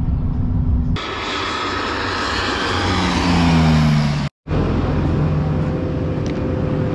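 Crop-dusting airplane passing low over a cornfield, its engine noise with a pitch that falls as it goes by, loudest a little past the middle. After an abrupt cut, a self-propelled sprayer's engine runs at a steady drone as the rig drives through corn.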